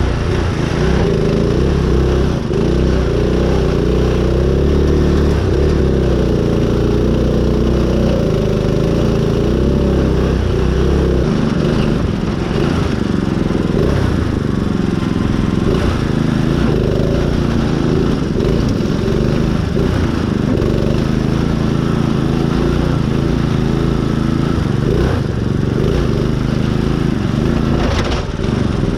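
Custom riding mud mower's engine running hard, its pitch rising and falling as it is pushed through mud. A heavy low rumble fades about eleven seconds in.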